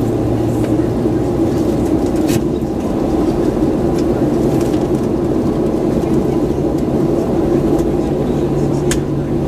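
Steady cabin drone inside a Boeing 737-900 on the ground, with a low hum that steps up in pitch near the end and two faint clicks.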